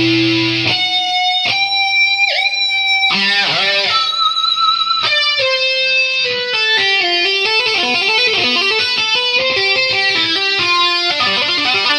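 Background music led by a guitar line, with a bent note about two seconds in and quick runs of notes in the second half.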